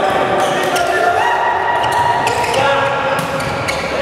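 Indoor volleyball game in an echoing sports hall: drawn-out squeaking tones over players' voices, with a few ball thuds.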